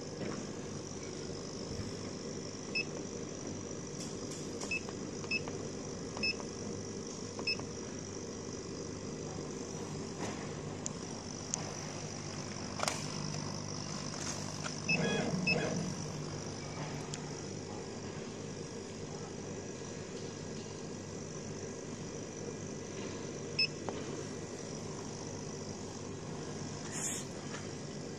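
Steady running hum of a laser cutting machine, with short electronic beeps from its control-panel keypad as buttons are pressed: several in the first eight seconds and a couple more near the end. A brief louder clatter comes about fifteen seconds in.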